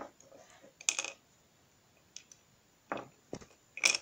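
Small plastic toy figures and accessories being picked up and set down on a wooden shelf: a few light clicks and short scrapes, one about a second in and another near the end.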